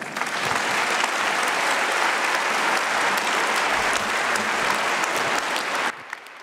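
Large audience applauding: dense, steady clapping from many hands that drops away sharply near the end, leaving a few scattered claps.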